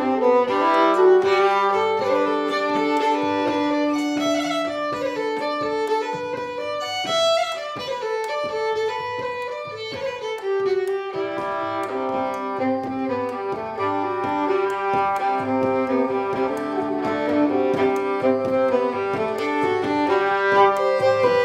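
Live instrumental ensemble playing a tune: violin and soprano saxophone carry the melody over held low notes.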